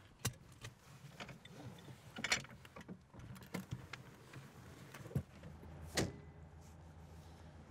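Door of a classic Citroën DS being opened and shut: a run of clicks and knocks, with a low steady hum that comes in about three seconds in.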